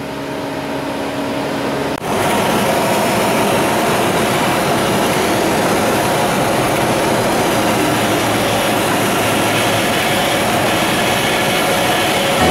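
Cabin noise of a small single-engine propeller plane, filmed from the cockpit during approach and landing: a steady engine and propeller drone. About two seconds in it jumps abruptly louder and noisier, then holds steady.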